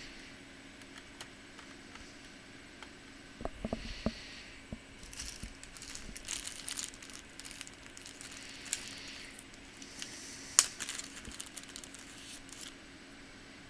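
Toshiba Satellite laptop being taken apart by hand: scattered clicks, knocks and rustling scrapes of its plastic case and parts, with one sharp click about ten and a half seconds in.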